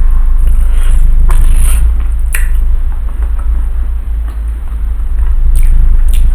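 Close-miked chewing and biting of a chewy fried tapioca cireng filled with shredded chicken: soft, sticky squishing mouth sounds broken by a few sharp bite clicks. A steady low hum runs underneath.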